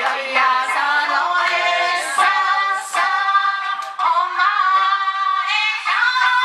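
Two women singing live into microphones, amplified through a PA, with a long held note from about four seconds in.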